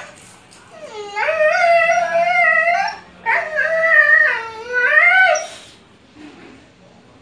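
A dog howling: two long howls of about two seconds each, the first rising and then held steady, the second wavering up and down.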